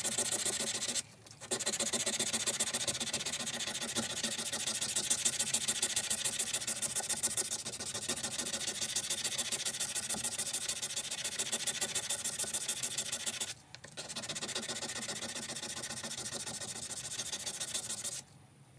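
Sandpaper rubbed by hand in quick back-and-forth strokes along a steel knife blade, sanding off rust: a steady rasping scrape of several strokes a second, with two short pauses, about a second in and near the end.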